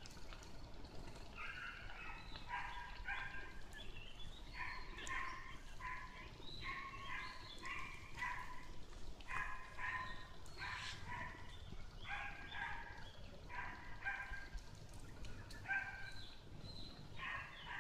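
Nine-day-old kittens mewing while they nurse: short, thin, high calls repeated over and over, about one or two a second.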